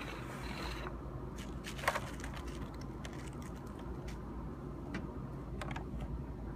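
A few light clicks and knocks from hands handling a 1/18 diecast model car as it is freed from its packaging, over a steady low hum. The sharpest click comes about two seconds in.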